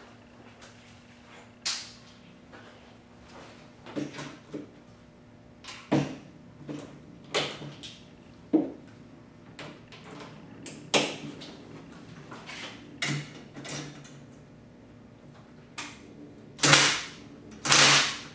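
Cordless drill driving a stainless steel bolt into aluminum square stock in short bursts, among knocks and clatter of metal parts being handled. The two longest, loudest bursts come near the end.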